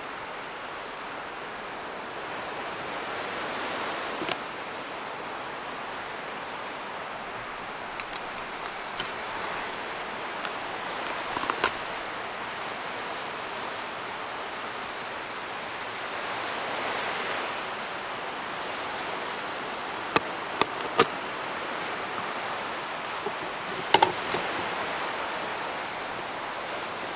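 Knife working a whole fish on a wooden cutting board: scattered sharp clicks and taps of the blade against the board, a quick cluster about a third of the way in and the loudest near the end. A steady rushing background noise runs underneath.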